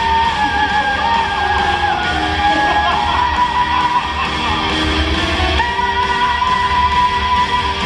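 Live rock music from a stage show band: guitars and long held notes over a steady low bass.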